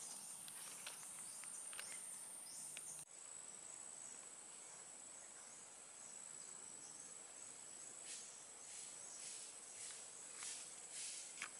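Faint, steady, high-pitched drone of insects in tropical woodland; about three seconds in it breaks off and carries on slightly lower in pitch, with a few light clicks near the end.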